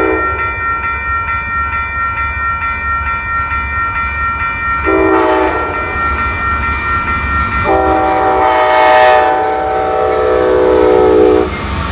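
Amtrak P42 diesel locomotive's air horn sounding its grade-crossing warning: one short blast about five seconds in, then a long blast held for nearly four seconds. Under it, a railroad crossing bell rings steadily, and the train's low rumble grows louder as the locomotive reaches the crossing near the end.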